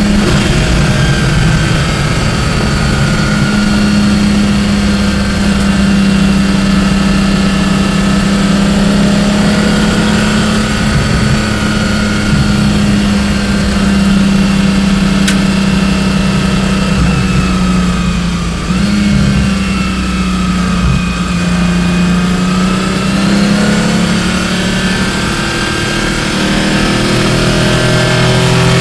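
Porsche 718 Clubsport's flat-six engine heard from inside the car at speed on track, holding a steady pitch under a haze of road and wind noise. There is a brief dip about two-thirds through, and the pitch climbs near the end as the car accelerates.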